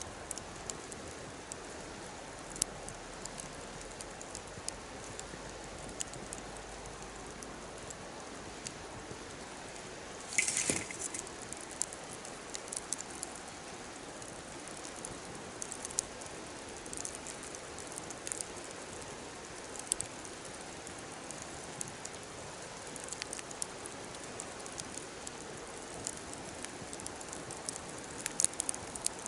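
Wood fire burning, a steady soft hiss with scattered sharp crackles and pops, and a louder burst of crackling about ten seconds in.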